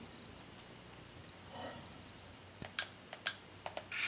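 Buttons clicking as menu selections are pressed to confirm an add-on install. There is a soft rustle midway, then a quick run of about seven clicks in the last second and a half.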